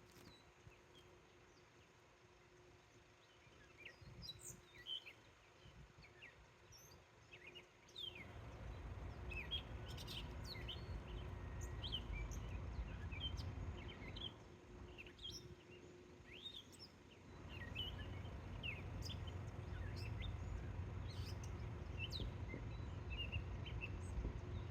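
Small birds chirping and calling in quick, short notes, many times over, with a low rumble underneath that comes in about a third of the way through.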